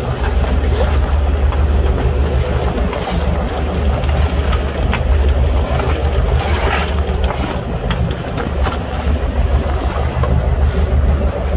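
A boat engine running steadily with a low drone, with scattered scrapes and clatter of a plastic dustpan scooping fish and crabs off the deck.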